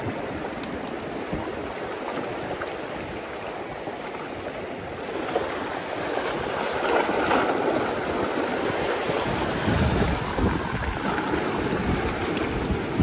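Sea waves washing in, with wind buffeting the microphone; the surf swells louder about halfway through.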